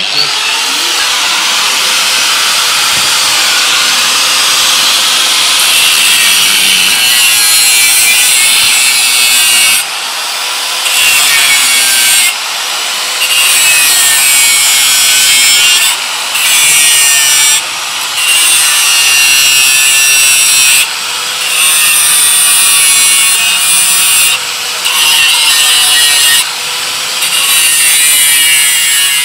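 Makita angle grinder with a cut-off disc cutting stainless steel exhaust pipe: a loud, high grinding screech over the steady whine of the motor. After about ten seconds the cutting noise drops away briefly several times, then picks up again.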